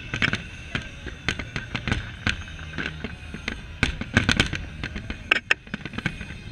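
Aerial fireworks shells bursting in quick, irregular bangs, with the loudest cluster of bangs from about four to five and a half seconds in.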